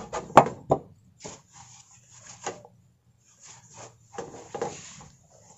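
An enamel plate knocking on wooden floorboards a few times as it is set down in the first second. Then come irregular soft clicks, scrapes and rustles as a cat eats from the plate.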